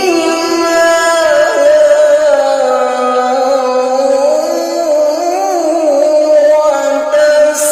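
A male qari reciting the Qur'an in melodic tilawah style, drawing out one long ornamented note with the pitch wavering and gliding slowly up and down.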